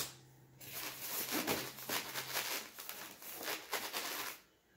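A sharp click as the bagged manual is set down on a glass tabletop, then several seconds of rustling, scraping and squeaking as hands grip and work at the lid of a styrofoam packing box, stopping near the end.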